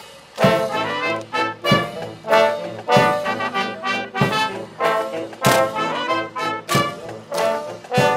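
Background music with a steady beat, a little under two beats a second, and a melody of held pitched notes.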